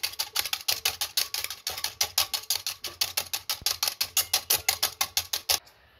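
Coil spring whisk beating an egg in a stainless steel bowl: fast, even metallic clicking, about eight strokes a second, that stops about five and a half seconds in.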